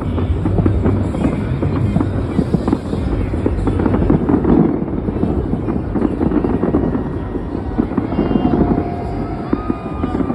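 Aerial fireworks display going off in a dense, continuous barrage of bangs, booms and crackle. A few high whistling tones come in near the end.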